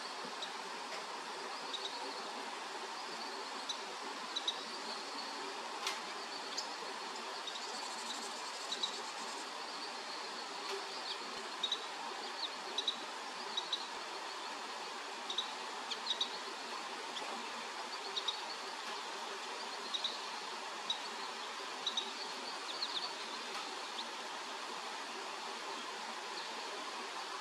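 Young Carolina wren giving short high chirps, often in quick pairs, every second or two, over a steady hiss of falling rain.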